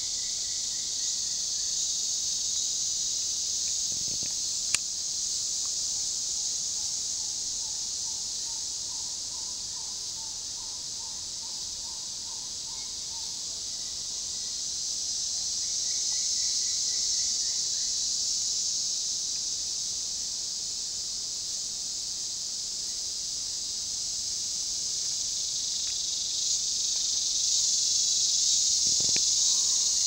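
Rainforest insect chorus: a steady, high, shrill drone that swells near the end. Over it a bird gives calls that are each a rapid run of short repeated notes, once near the start, once in the middle at a lower pitch, and once a little past halfway.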